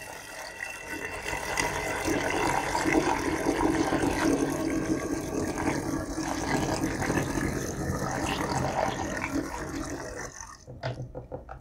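Pear juice pouring from a plastic bottle through a funnel into a one-gallon glass jug, a steady gushing pour that stops near the end, followed by a few light clicks.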